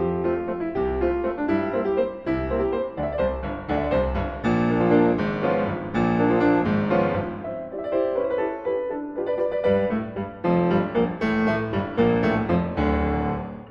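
Background piano music, with many notes struck in quick succession.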